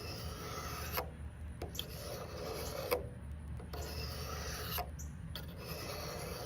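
Knife blade drawn along a 1000-grit sharpening rod, a rasping stroke about every second with a light click as the edge meets the rod.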